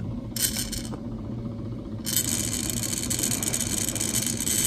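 Slow, deep inhalation through the mouthpiece of an Airlife incentive spirometer: a short airy hiss just under a second in, then a steady hiss from about two seconds in, held as the piston rises in the column. It is a post-operative deep-breathing exercise.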